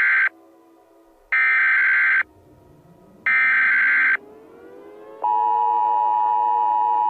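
Emergency Alert System SAME header: the end of one burst and then two more bursts of buzzing digital data tones, about a second apart. About five seconds in, the steady two-tone EAS attention signal begins and holds.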